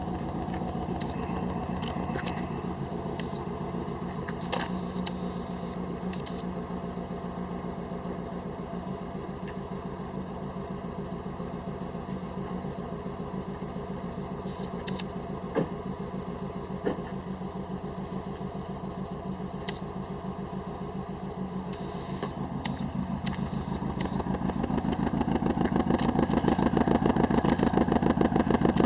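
A 2002 Subaru Impreza WRX's turbocharged flat-four engine running with a misfire, with a steady pulsing beat and a few sharp ticks midway. The engine grows louder about three-quarters of the way through and stays up.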